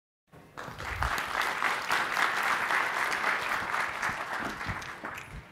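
Audience applauding in a lecture hall, the clapping starting suddenly just after the start, holding steady, then thinning out near the end.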